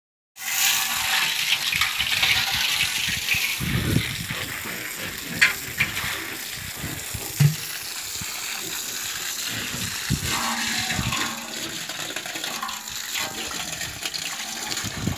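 Water from a garden hose spraying and splashing onto catfish lying on wet grass, a steady rush with a few short knocks near the middle.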